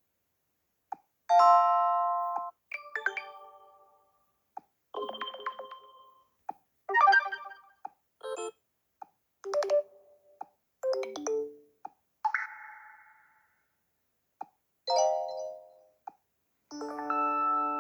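TCL Tab 8 LE tablet playing about ten different short notification tones one after another, mostly chimes and brief melodies that ring out and fade, with a small click before most of them. One, about twelve seconds in, is a short swoosh instead of a chime.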